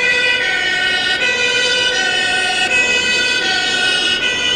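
Two-tone siren of a remote-controlled model fire truck, sounding continuously and stepping back and forth between two pitches.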